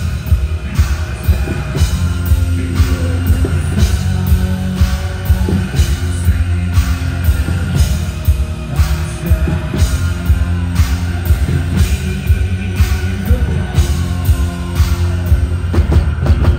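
Metal band playing live, loud drum kit and distorted guitars in a heavy, boomy mix with a steady pounding beat.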